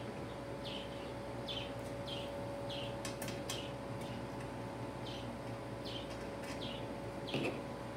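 A bird chirping over and over, short falling chirps about one or two a second with a brief pause in the middle, over a steady electrical hum. A few light clicks come a little past the middle as plastic suction-cup feet are handled against the slicer's metal base tray.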